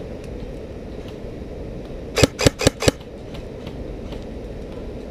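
Airsoft electric rifle firing four quick shots, a little over two seconds in.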